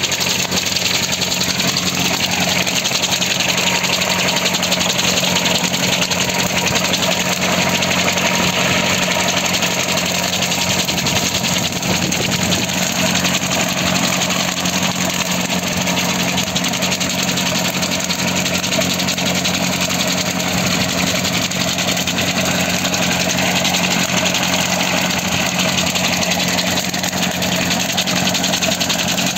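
Tractor engine running at a steady speed, driving a homemade tractor-mounted brush cutter that is mowing grass. The sound is a constant, unchanging engine note with a wide whirring noise over it.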